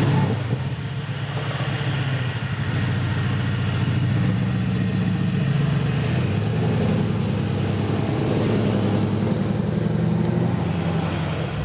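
Mercedes-AMG C63 S Coupe's 4.0-litre twin-turbo V8 starting up, catching with a loud flare right at the start, then idling steadily.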